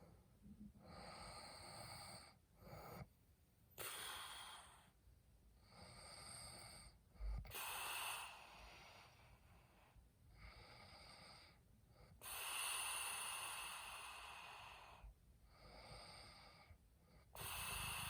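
A man snoring heavily in his sleep, each breath a noisy stretch of one to three seconds with short pauses between, in a steady rhythm.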